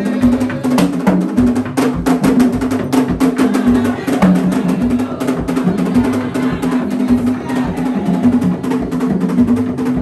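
Haitian Vodou ceremonial drums played in a fast, dense, continuous rhythm, with many sharp clicking strikes over a steady pitched sound underneath.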